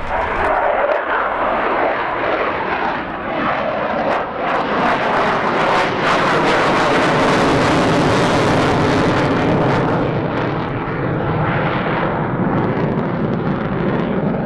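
Jet noise from a Sukhoi Su-27 Flanker's two turbofan engines during a display pass. It is loud and swells to its peak about halfway through, then eases off.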